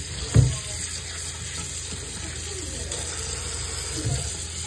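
Kitchen tap running into a stainless steel sink, water splashing over pork hocks being rinsed by hand in a colander. A thump about half a second in and a smaller one near the end.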